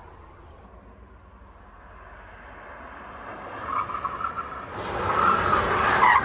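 Kia EV6 GT electric car driven hard toward the listener, with no engine note, only tyre and wind noise. It builds from a faint hiss about three seconds in to a loud rush, and the tyres squeal through a corner near the end.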